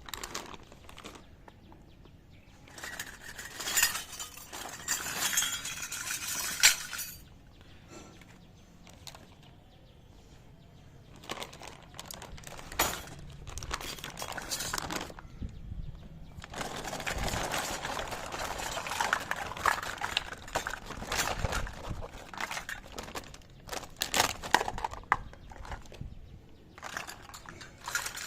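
Small toy kitchen utensils and their packaging being handled, giving many light clicks, taps and clinks. Two longer stretches of denser rustling and scraping come a few seconds in and again past the middle.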